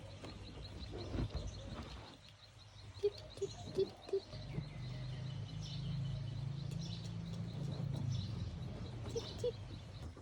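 Small birds chirping faintly and high, with runs of short, low repeated notes about two to three a second. A low hum rises underneath in the middle.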